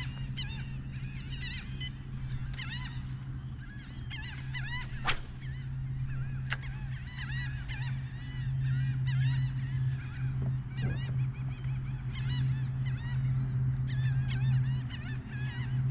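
A flock of waterbirds calling over and over in bursts of short, arched honking cries, over a steady low hum, with one sharp tap about five seconds in.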